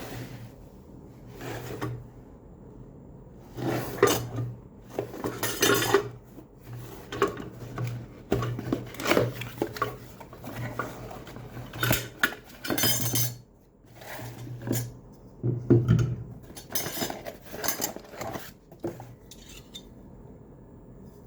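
Irregular clinking and rattling of hard, metallic-sounding objects being handled, in clusters of sharp knocks with short pauses between them.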